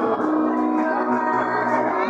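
Church choir music: a lead singer on a microphone and choir singing a gospel song over amplified instrumental backing with a steady bass line.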